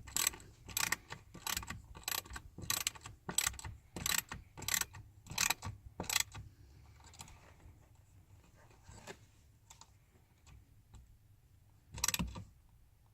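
Hand ratchet clicking in a steady rhythm, about three clicks a second, as a nut is tightened down; the clicks grow fainter and sparser after about six seconds, and a short louder clatter comes near the end.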